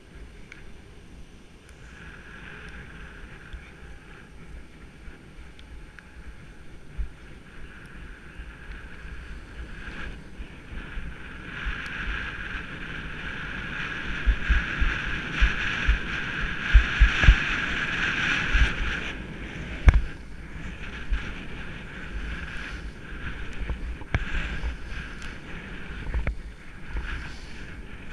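Skis sliding through fresh snow, a steady hissing swish that swells louder from about halfway through, then eases a few seconds later. Wind on the camera microphone adds scattered low thumps.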